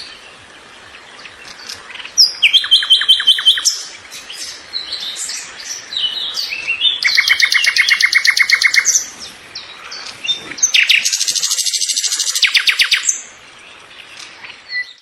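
Songbirds singing: three loud, fast trills of rapidly repeated notes, about two seconds in, around seven seconds in and around eleven seconds in, with scattered higher chirps and whistles between them.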